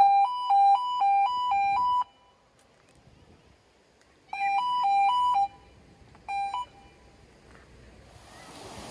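Two-tone electronic warning sounder at a marina lock gate, signalling that the lock is in operation. It alternates between a low and a higher tone about twice a second, in three bursts: about two seconds, then about a second, then a short blip. Near the end a rushing noise grows.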